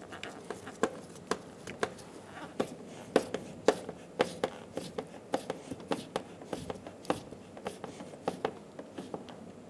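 Phillips screwdriver turned by hand, driving a screw into a plastic grille and bumper cover: a run of short, irregular clicks, a few each second.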